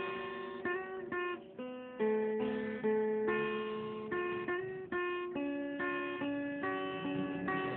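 Instrumental background music led by a plucked guitar, playing a melody over chords with a new note or chord every half second or so.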